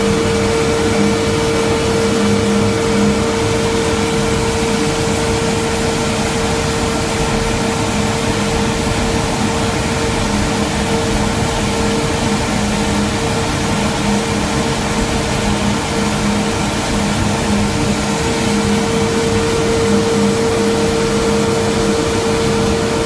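Garrett TPE331-6 turboprop engine running steadily at about 65% rpm: a loud, steady whine with a lower hum beneath it, over a broad rush that holds level throughout.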